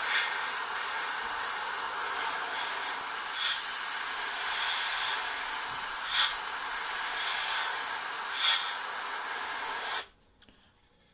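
Airbrush spraying black paint: a steady hiss of air with three brief louder spurts, cutting off suddenly about ten seconds in.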